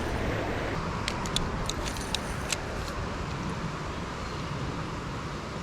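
Steady rush of flowing creek water, with a quick run of sharp clicks between about one and two and a half seconds in.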